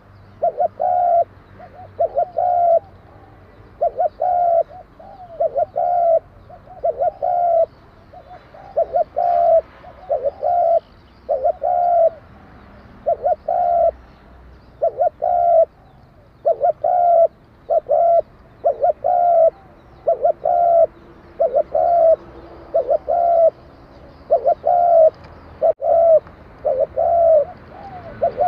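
Spotted dove cooing its song over and over, in short phrases of two or three low coos repeated every second or two. It has the ringing voice type that Vietnamese dove keepers call 'đồng kim'.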